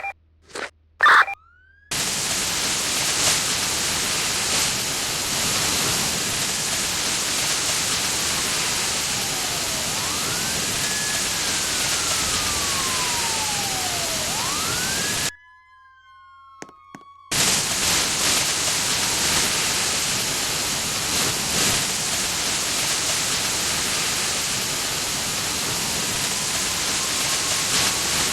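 A loud steady hiss with a faint emergency siren wailing up and down beneath it. The hiss cuts out suddenly for about two seconds just past the middle, leaving a few clicks, then comes back.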